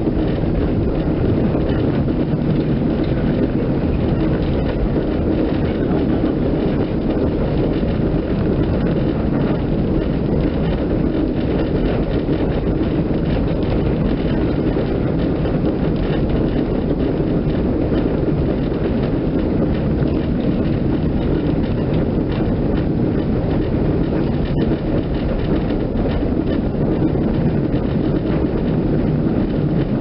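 Steady running rumble of a moving passenger vehicle, heard from inside its cabin, with one faint tick a little before the end.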